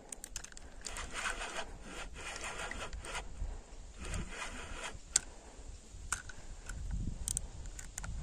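Fishing reel being wound in irregular bursts while a hooked carp is played, a rasping, rubbing whir with scattered clicks.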